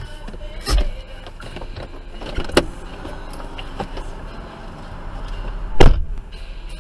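Clunks and knocks from a stopped car as its driver gets out, with one loud door-slam thump near the end, over the low steady hum of the idling engine.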